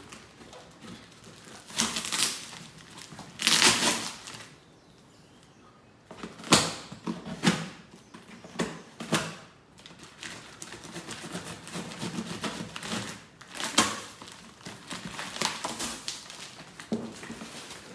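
Packing tape being cut and ripped off a cardboard box, with the cardboard flaps rustling and crinkling, in a run of irregular rips and scrapes with a short pause a few seconds in.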